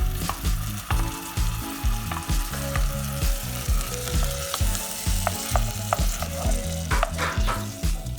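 Food frying and sizzling in oil in a pan while it is stirred, with a steady hiss throughout. Background music with a steady beat plays underneath.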